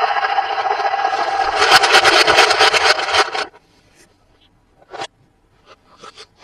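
Toy and packaging being handled: a steady scraping rub that turns into a fast rattle of clicks, stops abruptly about three and a half seconds in, then a few light taps.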